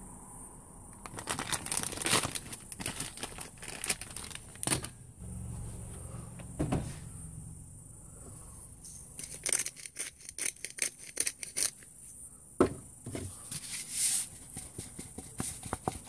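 Crinkly plastic bag rustling in the hands as dried herbs are shaken out of it, with scattered clicks and one sharp knock about three-quarters of the way through.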